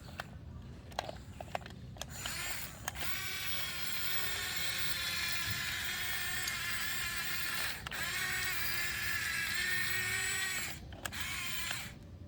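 Small electric motor running with a steady high whine. It starts about three seconds in, breaks off briefly near eight seconds, and stops near eleven seconds, after a few light clicks at the start.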